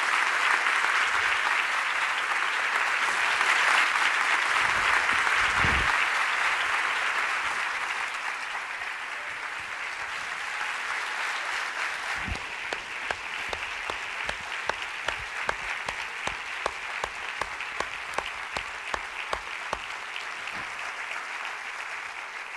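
Audience applauding at the end of a talk. It is loudest for the first several seconds and slowly thins out, with single sharp claps standing out through the second half.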